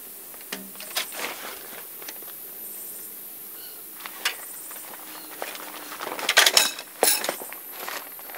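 Scattered sharp clicks and knocks, with a louder cluster about six to seven seconds in and no engine running.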